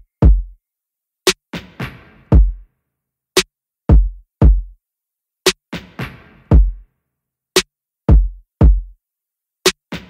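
Background music: a sparse drum-machine beat of deep booming kicks, sharp clicks and a snare with a hissy tail, the pattern repeating about every four seconds with silence between the hits.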